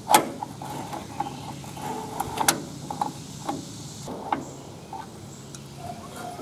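Adjustable wrench clinking on the square-drive drain plug of a Ford 8N's cast oil pan as the plug is worked loose: a scatter of sharp metal clicks, the loudest just at the start and another about two and a half seconds in.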